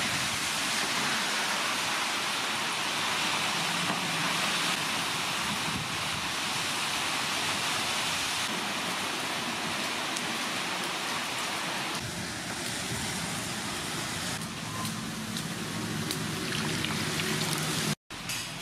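Water splashing and swishing in a stainless steel pot as mung beans are washed by hand, a steady watery hiss that grows weaker and more uneven about twelve seconds in.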